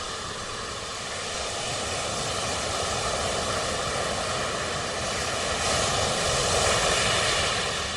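A steady rushing roar with a faint hum in it, swelling slightly about six seconds in.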